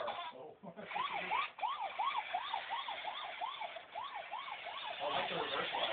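Toy police car's electronic siren wailing in quick rising-and-falling sweeps, about three a second, over a steady hiss; the siren starts about a second in.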